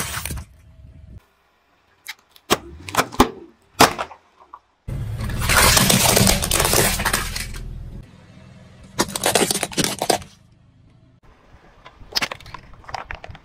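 A car tyre rolling over and crushing plastic objects such as a toy car and bottles, heard as a string of separate sharp cracks and crunches. The longest and loudest crunching comes about five seconds in and lasts around three seconds, with more short cracks near the end.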